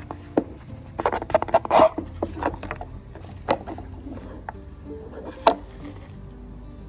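A white cardboard jewelry box being handled: the lid rubs and scrapes as it slides off the base, and there are two sharp taps as the box parts are set down on a hard surface.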